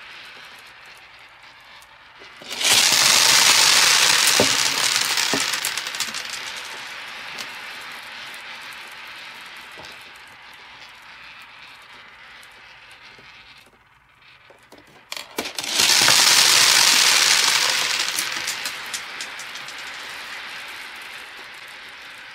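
Many small plastic balls spilling onto a hard surface and rattling as they scatter and roll, twice: a sudden rush about two and a half seconds in and another about fifteen seconds in, each dying away over several seconds.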